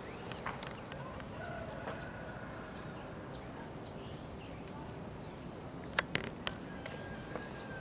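Distant roosters crowing faintly, with scattered small bird chirps over steady background noise. About six seconds in, three sharp clicks come close together.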